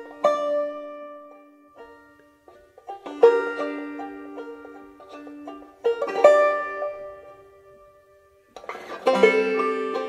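Background music: a plucked-string tune, with a strongly struck chord about every three seconds whose notes ring and fade away.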